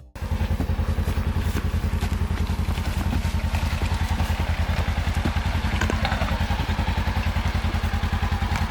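An engine runs steadily with a rapid, even putter of about a dozen beats a second.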